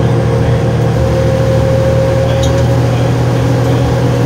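2007 New Flyer D40LF bus's 8.9-litre Cummins ISL diesel engine running steadily, heard from inside the passenger cabin, with a steady whine over the low engine hum.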